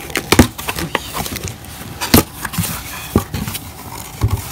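Cardboard box being opened by hand: flaps pulled apart and the cardboard rustling and scraping, with about four sharp knocks and snaps.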